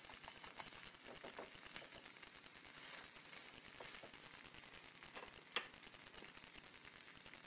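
Vegetable pancake frying in oil in a pan, sizzling faintly with scattered small crackles and pops. One sharper pop comes about five and a half seconds in.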